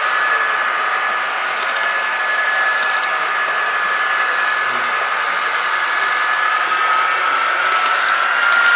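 H0-scale model train running along three-rail track: a steady high whine from the locomotive's electric motor over the rattle of wheels rolling on the rails, the whine rising slightly in pitch near the end.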